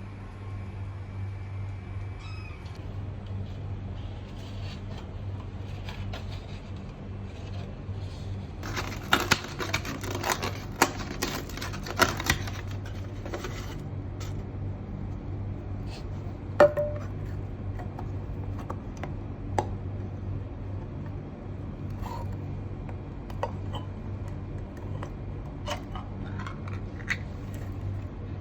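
Cats feeding from a dish: a run of sharp clicks and clatter about nine to thirteen seconds in, then scattered single clicks, over a steady low hum.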